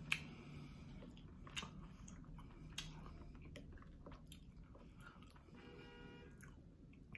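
Quiet, close-miked chewing of green-lipped mussels. Three sharp clicks in the first three seconds, about a second and a half apart, as the shells are handled in a ceramic bowl.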